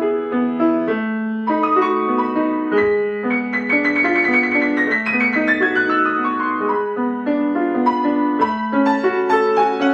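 Piano playing a classical piece, many notes at once over sustained lower notes. About three seconds in, a quick run cascades down from the treble.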